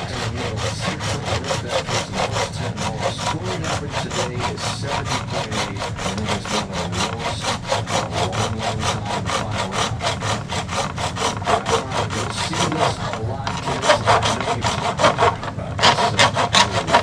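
Small saw cutting away a mounting boss, fast back-and-forth strokes at about five a second, with short breaks near the end.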